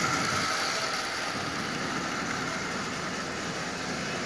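Lionel 8200 dockside switcher's small DC can motor, fed AC track power through a single diode, whirring as the locomotive runs slowly along the three-rail track. A faint whine fades over the first second over a steady hiss.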